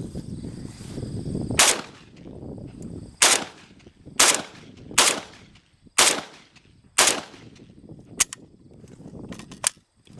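A firearm fired six times at a steady pace of about one shot a second, followed by a few fainter, sharper cracks near the end.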